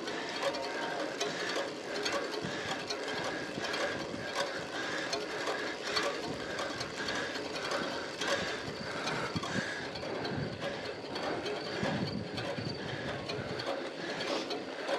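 Road bike drivetrain under load on a steep climb: the chain whirring and ticking over the sprockets and chainring with every pedal stroke, as a continuous mechanical clatter.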